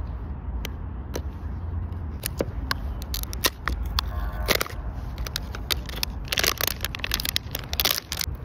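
Printed plastic wrapper being torn and peeled off a plastic toy bottle, crinkling and crackling. There are scattered sharp clicks at first, and the crinkling grows denser in the second half.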